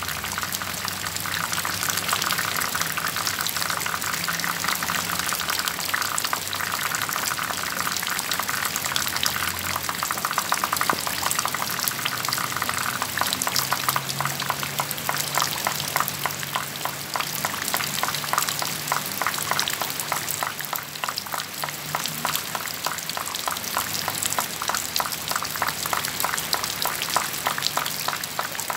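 Falling water, rain-like, pattering densely on leaves, soil, pots and shade netting: a steady hiss of countless tiny drops that becomes more distinctly pattering about halfway through.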